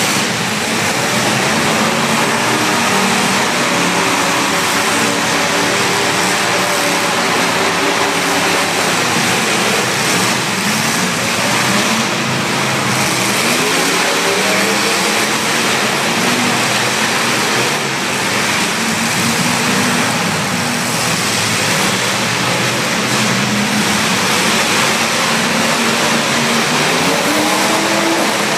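Demolition derby cars' engines, several at once, running and revving up and down continuously.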